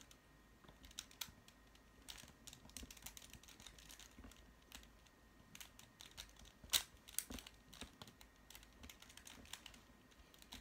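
Master Morphix twisty puzzle being turned by hand: quick, irregular plastic clicks and clacks of its layers turning, with one sharper click a little past the middle.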